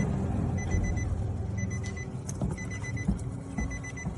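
A car's warning chime repeats a quick group of short high beeps about once a second. Under it are low rubbing and a few small clicks from the leather steering wheel cover being handled and tucked.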